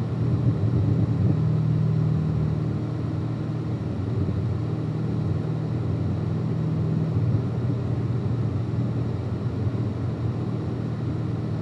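Car driving at a steady cruise: engine and road noise form a continuous low drone. The pitch of the drone shifts slightly about seven seconds in.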